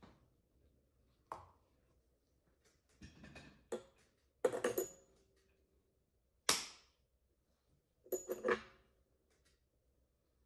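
Metal suturing instruments, a needle holder and forceps, clicking and clinking as they are handled during suturing, in several short clusters, some clinks ringing briefly; the sharpest single clink comes about six and a half seconds in.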